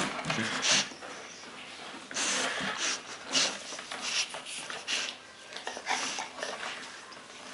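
Bull terrier puppy, just waking, making short noisy breaths and sniffs through the nose, irregularly spaced about one a second.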